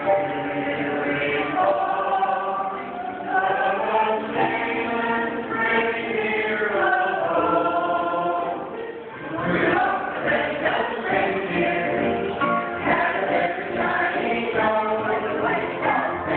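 A small group of men and women singing a Christmas carol together, accompanied by acoustic guitars.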